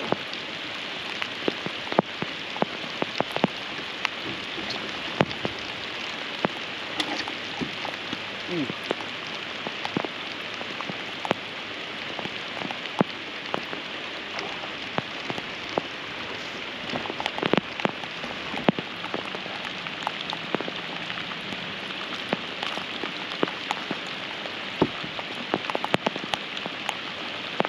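Steady rain falling on the lake and the boat: a constant hiss with frequent sharp taps of single drops.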